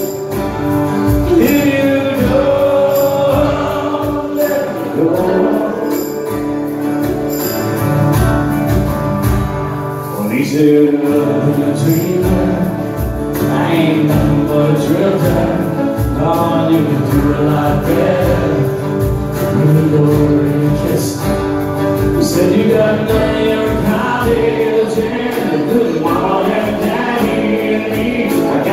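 Live acoustic band music: acoustic guitars strummed over a steady hand-percussion beat.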